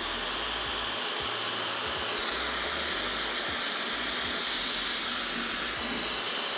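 Dyson Supersonic hairdryer running steadily: a rush of air with a thin high motor whine. It is working properly.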